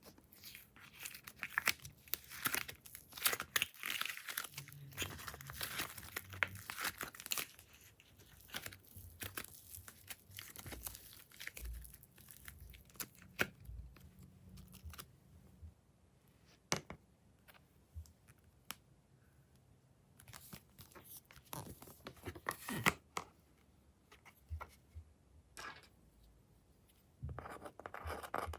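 Slime being stretched and pressed by hand, making crackling, popping sounds as air bubbles burst. The crackling is dense for the first several seconds, then thins to scattered pops, with short bursts again later on.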